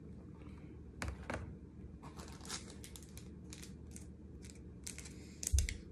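Packaging being handled and opened: scattered crinkling and tearing as a small carded item is unwrapped, with a knock about a second in and another louder knock near the end.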